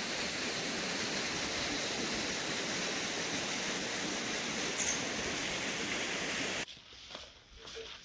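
Waterfall: a steady, dense rush of falling water that cuts off abruptly near the end, leaving a quiet background with a few faint ticks and knocks.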